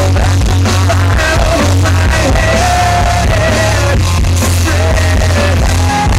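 Live rock song: a male lead vocalist singing full-voiced over a loud band with guitar. The recording is heavily distorted.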